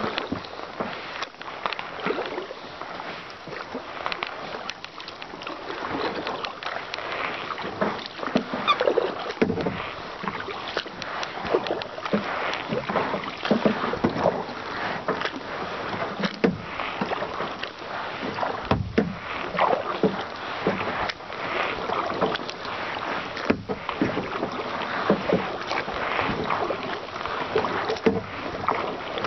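Kayak paddling: paddle blades dipping and splashing into calm water at an irregular stroke rhythm, with dripping and trickling water between strokes.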